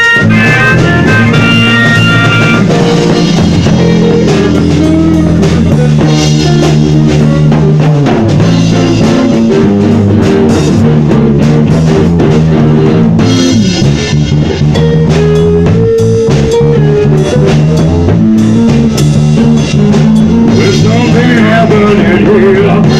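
Loud live rock jam: electric guitar, bass guitar and a drum kit playing together. A harmonica is blown into the vocal mic, holding high notes over the band for the first couple of seconds.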